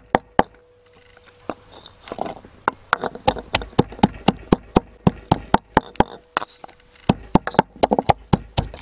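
Pestle pounding garlic cloves and black peppercorns in a wooden mortar: a run of sharp knocks, about four a second, broken by short pauses about a second in and again near six seconds.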